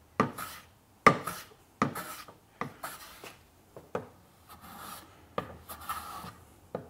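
Metal smoothing plane taking short strokes across the end grain of a dovetail joint, about one stroke a second, each a sharp bite followed by a brief hiss of shaving. The joint is being planed flush, and the strokes grow softer toward the end.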